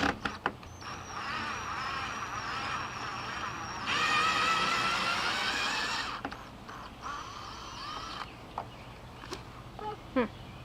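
Power drill driving a long 4-inch screw into the wooden pen frame: the motor whines for about seven seconds, its pitch wavering under load and getting louder and rising in the middle, then stops, followed by a few light clicks.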